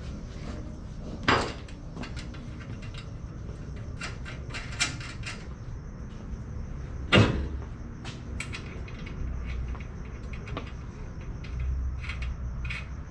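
Scattered metallic clicks and clinks of hand tools and suspension hardware being worked on, with two louder knocks about a second in and about seven seconds in.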